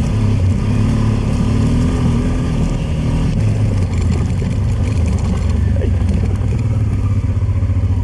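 Adventure motorcycle engine pulling along a dirt track, its note rising and falling with the throttle, then settling lower and steadier about halfway through.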